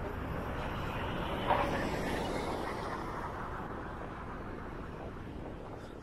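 A car passing on the street, its tyre and traffic noise swelling to a peak and then fading away, with a short sharp noise about a second and a half in.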